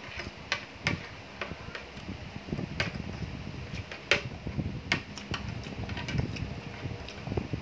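Metal spoon and fork clinking and scraping against a ceramic bowl of noodles in broth, a sharp click about once a second, the loudest about four seconds in, over a steady low hum.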